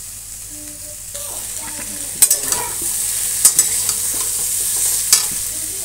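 Cauliflower, onion and spices sizzling in oil in a metal kadhai while a metal spatula stirs them. The sizzle grows louder about a second in, and the spatula strikes the pan sharply about three times.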